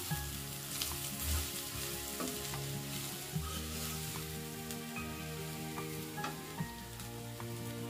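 Onion and spice masala sizzling in hot oil in a kadai while a metal spatula stirs and scrapes it, with scattered taps and clicks of the spatula against the pan. Dry spice powders are frying in the oil.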